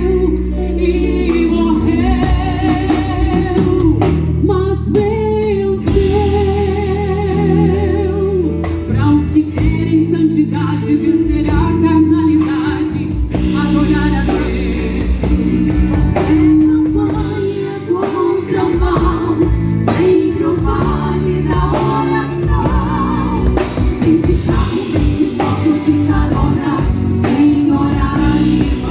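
Live gospel music: singing over a full band with drum kit and bass, several sung notes held with vibrato.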